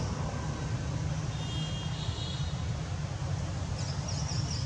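Steady low rumble, with a bird chirping a quick run of high notes near the end.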